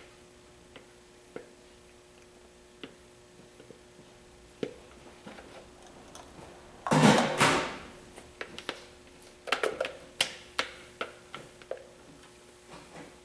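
Scattered light clicks and taps of bottles and containers being handled on a work surface, with one louder scraping or rustling sound lasting about a second partway through and a quick run of clicks soon after. A faint steady hum sits underneath.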